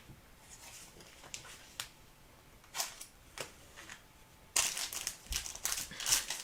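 Trading-card pack wrapper crinkling as cards are handled: a few light clicks and rustles, then, about four and a half seconds in, louder continuous crinkling.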